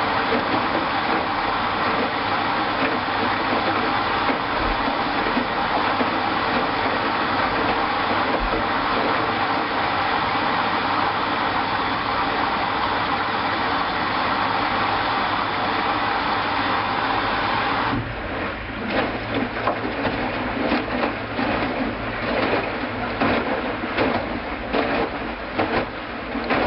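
Hoover washing machine in its first rinse: a steady hiss of water filling the machine, cutting off sharply about two-thirds of the way through. Then the drum turns, with irregular knocks and swishes.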